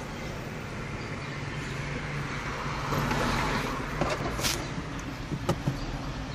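Steady low hum of a car idling, heard from inside the cabin. A scuffle of handling noise comes a little past halfway, then a few short sharp plastic clicks as the OBD-II plug is worked into the port under the dashboard.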